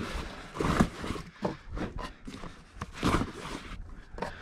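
A few separate knocks and clunks with rustling and footsteps, as the pop-top roof of a Toyota Land Cruiser troop carrier is handled and closed up.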